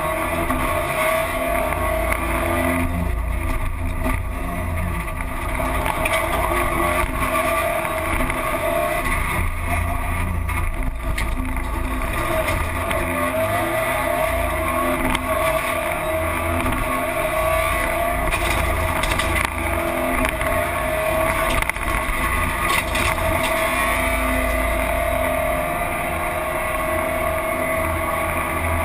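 Rally car engine heard from inside the caged cabin, running hard at speed, its pitch rising and falling as the driver accelerates and shifts. Tyre and road noise sit underneath, with a few short knocks about two-thirds of the way through.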